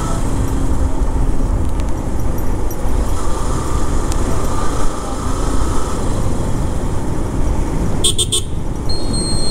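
Motorcycle riding through city streets: steady engine and wind rumble. A vehicle horn tone sounds for a couple of seconds midway, and a brief rattling clatter comes about eight seconds in.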